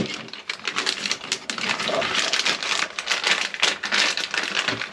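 Paper sheets and plastic packaging being handled, rustling and crinkling in a dense run of small crackles and clicks.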